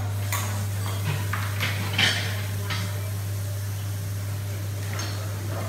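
Kitchen clatter: scattered clinks and knocks of metal bowls, trays and utensils on steel benches, the loudest about two seconds in with a short ringing, over a steady low hum.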